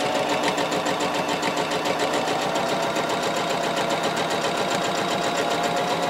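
Small electric domestic sewing machine running steadily at an even speed while stitching a seam, its motor hum overlaid by a rapid, regular needle rhythm.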